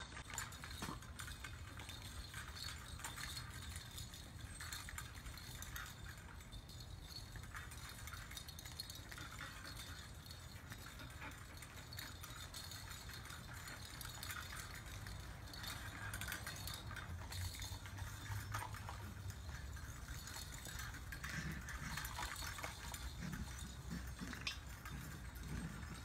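Faint rattling and clinking of plastic and metal toys hanging from a puppy play frame as puppies tug and chew on them, with scattered small clicks over a low steady hum.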